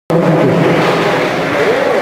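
Indistinct voices and chatter in a large sports hall.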